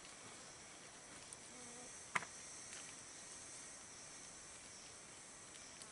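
Steady high-pitched chorus of insects, crickets and cicadas, with a single sharp click about two seconds in.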